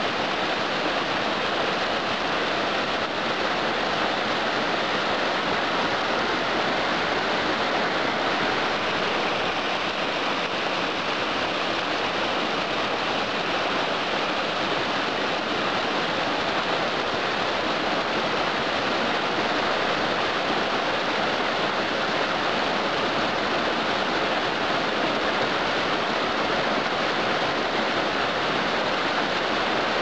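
A tall mountain waterfall pouring onto rocks: a steady, even rush of falling water, running high with spring snowmelt.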